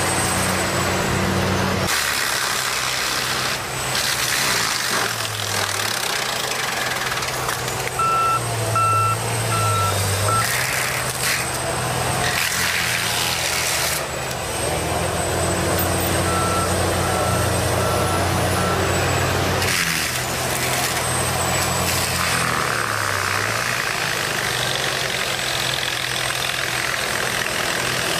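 Heavy forestry machine's diesel engine running hard, its pitch dipping and rising with the load as the toothed cutting head works through trees. A reversing alarm beeps twice in short runs of about four beeps.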